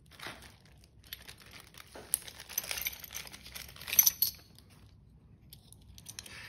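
Plastic bags and bubble wrap crinkling while small kit parts are unwrapped by hand, mixed with small clicks and clinks of the metal parts. The loudest is a sharp click about four seconds in.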